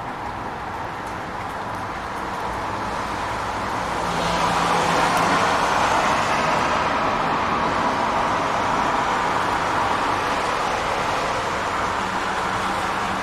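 Rain on a city street with road traffic: a steady hiss that swells about four seconds in, as of a vehicle going by on the wet road, with a faint low engine hum underneath.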